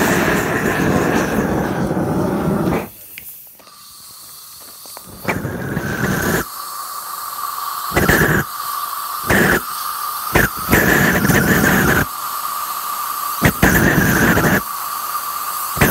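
Homemade kerosene and compressed-air liquid rocket engine firing on a static test: a loud rushing burn with a steady whistle that drops in pitch within the first few seconds. About three seconds in, the rush falls away for two seconds, then comes back in uneven on-off bursts over the continuing whistle.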